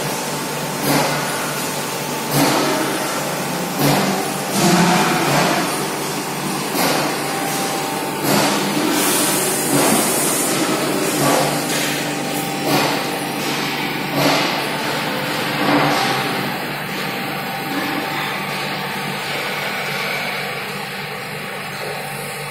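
Plant machinery running steadily with a faint steady hum, and a louder pulse about every one and a half seconds.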